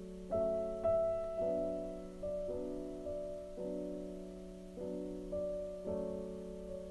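Slow background piano music, a new note or chord struck about every half second to a second, over a steady low hum.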